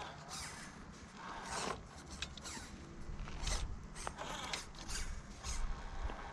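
Axial Early Bronco 1.9 scale RC crawler's electric motor and gear drivetrain whirring in short stop-start bursts as it crawls, with scrapes and clicks from the tires and chassis.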